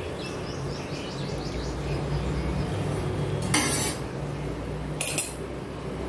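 A metal spatula scrapes and clinks against a stainless-steel plate twice, once about three and a half seconds in and again at about five seconds, as a rolled dosa is pushed across it. A steady low hum runs underneath.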